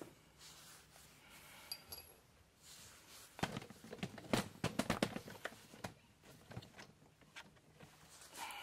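A cluster of light knocks and clinks from about three to five seconds in, with a few single clicks elsewhere, from the steel front wheel spindle and axle of a garden tractor being handled and worked loose.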